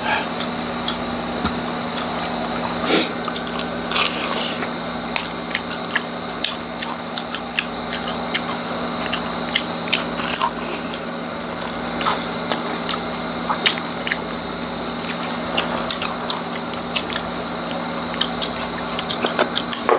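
Close-up crunching and chewing of crispy deep-fried pork intestine (chicharong bulaklak), with many sharp crackles as it is bitten and chewed.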